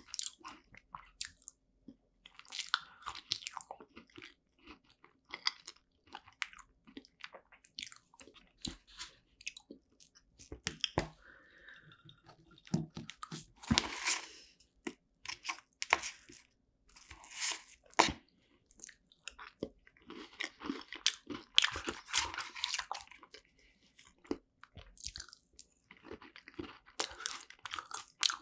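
Close-miked chewing and crunching of a strawberry rare cheese tart, in irregular clusters of crisp clicks, with the fork scraping into the tart about halfway through.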